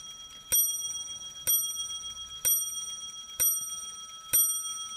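French count wheel clock movement striking ten o'clock, the strike now back in step with the hands. Five strokes here, about a second apart, each ringing on into the next.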